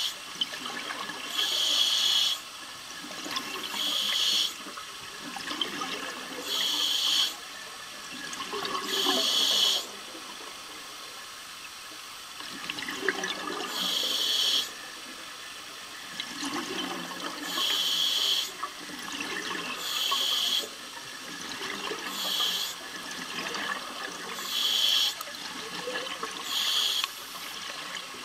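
Scuba regulator breathing heard underwater: about ten short hissing bursts of bubbles, roughly every two to three seconds with one longer pause partway through, over a low bubbling background.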